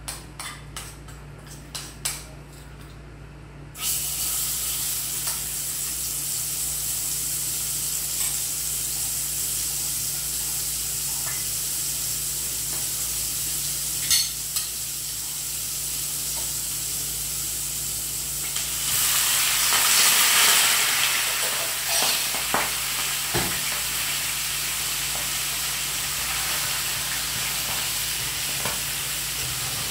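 A spoon clicks lightly in a bowl. About four seconds in, spice paste goes into hot oil in a pan and starts a steady frying sizzle. A little past the middle the sizzle swells for a few seconds as mussels go into the pan, followed by scattered knocks of a wooden spatula stirring them.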